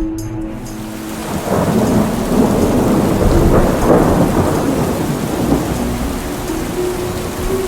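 Rumbling thunder over steady rain, swelling about a second and a half in and slowly easing off.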